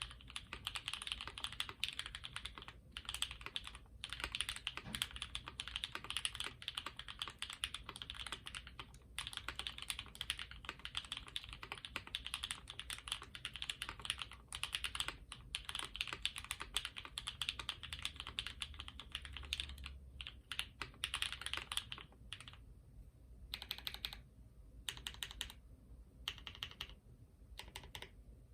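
Typing on a custom HHKB-layout mechanical keyboard with an aluminium top, brass bottom case, carbon-fibre plate, Krytox-lubed and filmed Cow switches and GMK keycaps: a fast, steady stream of keystrokes with a few brief pauses, breaking into shorter separate bursts with gaps in the last several seconds.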